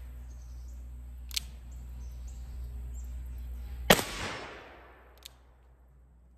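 An Uberti 1861 Navy .36 cap-and-ball revolver fires one black-powder shot about four seconds in, the loudest sound, with a short ringing tail. A sharp click comes a few seconds before the shot and a smaller one about a second after it. Birds chirp faintly near the start.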